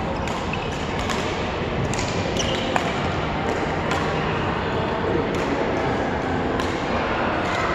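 Badminton rally: sharp taps of rackets striking the shuttlecock and short squeaks of shoes on the court floor, over a steady background hiss from the large hall. One louder knock comes a little under three seconds in.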